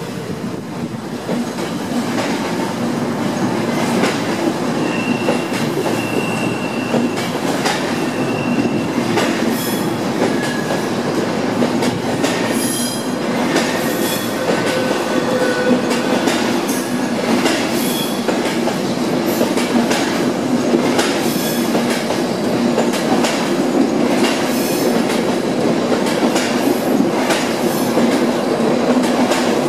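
InterCity 225 Mark 4 coaches rolling slowly past on a curved track, with a steady rumble of wheels on rail and irregular clicks as the wheels cross rail joints. Several short, high-pitched wheel squeals come in the first half.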